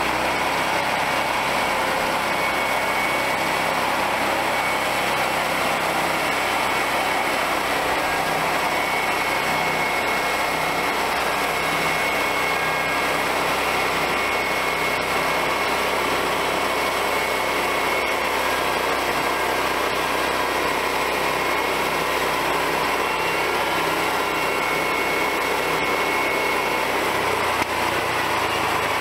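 Homemade bandsaw mill's small engine running steadily under load as the band blade saws lengthwise through a log.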